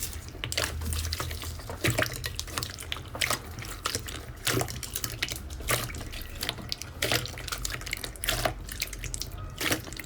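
Slime being squeezed and worked by hand, giving a dense, irregular run of wet clicks, pops and squelches.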